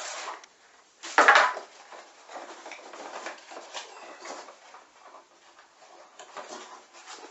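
Handling noises from a portable LED work light and its packaging and chargers being picked up and moved about: one loud knock about a second in, then light plastic clicks and rustling.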